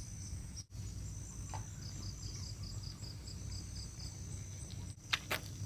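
Insects chirping in a steady high-pitched pulsing trill over a low background rumble, with two sharp clicks about five seconds in.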